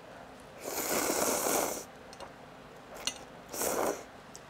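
Ramen noodles slurped loudly in one long pull about a second in, then a second, shorter slurp with the metal bowl held at the mouth.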